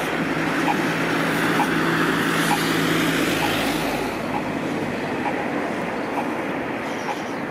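Road traffic on a city street: a vehicle passes close by during the first four seconds, then the traffic noise eases off. A faint short tick repeats about once a second.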